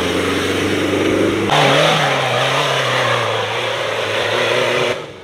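Competition 4x4 trial buggy's engine running hard at high revs under load as it climbs a steep dirt slope. The engine sound changes abruptly about a second and a half in, then runs on with a slowly wavering pitch.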